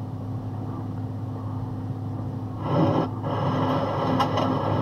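Box truck cab at highway speed on a wet road: steady engine drone and tyre noise. The noise swells louder about three seconds in, and a few faint clicks come near the end.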